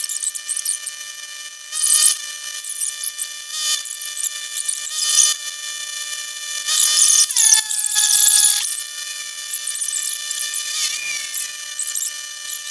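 A handheld electric power tool whines at high speed and bites into metal in several short passes. Each pass brings a hissing burst, and twice the whine drops in pitch under load before picking back up.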